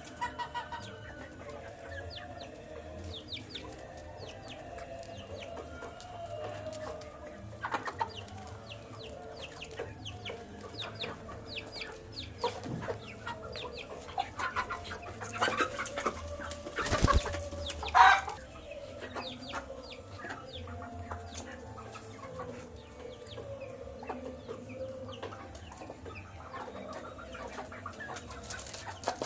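Baby chicks peeping continually while feeding, with light pecking taps. A louder burst of knocks and rustling comes about halfway through.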